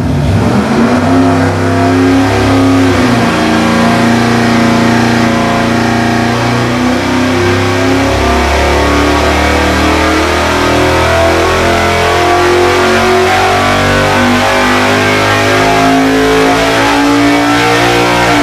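Carbureted small-block Chevrolet V8 running a full-throttle dyno pull: a quick rev-up, then a loud, steady run under load with the pitch climbing slowly through the rev range. The engine is fitted with roller-tip rocker arms on 3/8 in studs.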